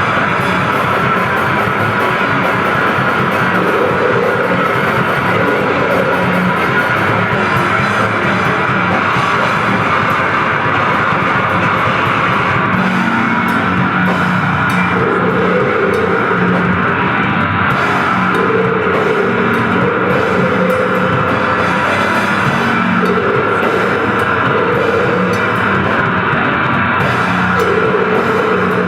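Grindcore band playing loud and steady: heavily distorted electric guitar and bass riffing over a drum kit.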